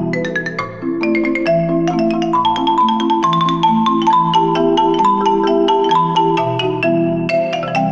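Background music led by rapid mallet-percussion notes, like a marimba or xylophone, over a sustained lower accompaniment.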